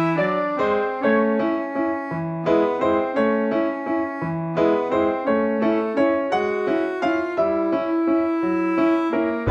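Background music: a keyboard melody with notes struck at an even pace, about two a second.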